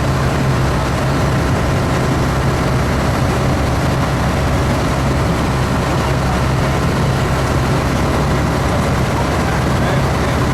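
An engine running steadily at an even speed: a constant low hum with no change in pitch or level.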